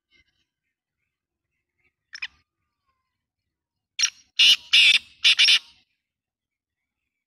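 Black francolin calling from a cage: a short faint note about two seconds in, then a loud, harsh call of four notes in quick succession about four seconds in.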